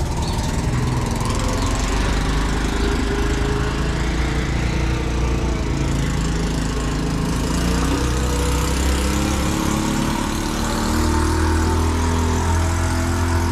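Small engine of an auto-rickshaw (tuk-tuk) running close by, a steady low putter that shifts in pitch partway through and grows louder about eleven seconds in.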